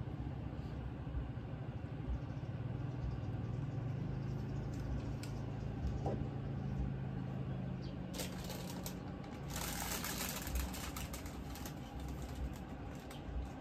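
Small items being handled on a tabletop: light clicks and a rustle about two-thirds of the way through, over a steady low hum.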